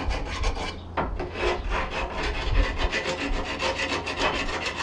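Hand file rasping in quick back-and-forth strokes against the metal inside a golf cart leaf spring eye, cleaning it out for new bushings, with a brief pause about a second in.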